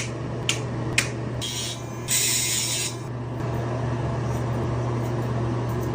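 Short spurts of running water from a tap or shower over a steady low hum, with a few sharp clicks in the first second.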